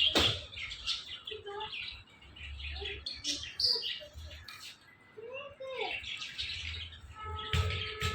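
Pet parrot chirping and chattering in short calls, with a few brief gliding whistled notes and a couple of sharp clicks.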